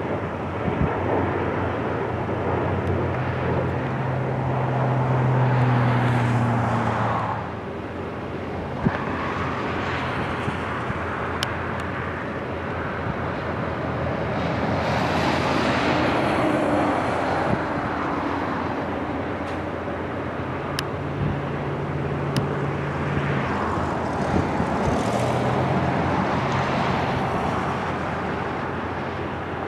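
Four-engine turboprop military transports of the C-130 Hercules type flying past in a pair: a steady propeller drone with a low hum. The sound swells and fades several times as the aircraft pass.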